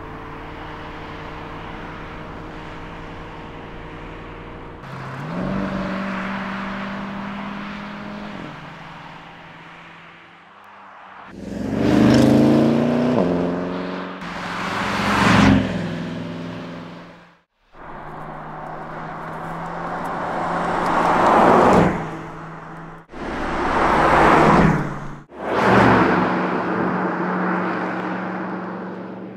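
Porsche Panamera Turbo S E-Hybrid Sport Turismo's twin-turbo V8 heard in a string of short clips: the engine pulling through the gears with a rising note, and the car passing close by several times, each pass swelling and fading. The clips change with abrupt cuts, and the loudest passes come in the second half.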